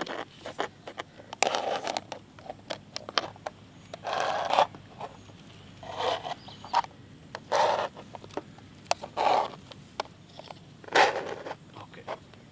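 Wooden ice-cream sticks pushed one after another through the lids of plastic cups: short scraping crunches of plastic every second or two, with light clicks of lids and cups between them.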